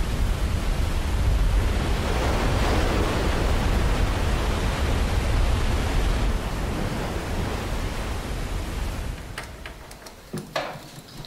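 Heavy waterfall, a dense steady rush of water with a deep low rumble, fading out about nine seconds in. Near the end a few light clicks and taps follow.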